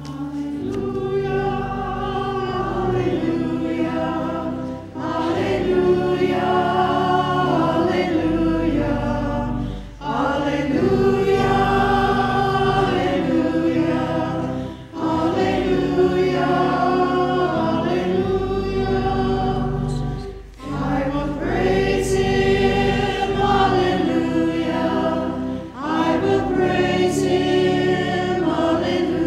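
Church choir singing in phrases of about five seconds each, with brief breaks between them.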